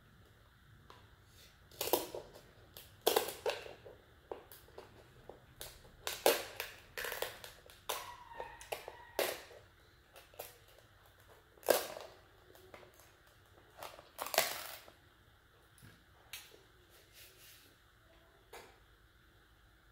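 Kitchen shears cutting through the shell of a king crab leg, giving irregular sharp crunches and snaps of cracking shell, thinning out over the last few seconds.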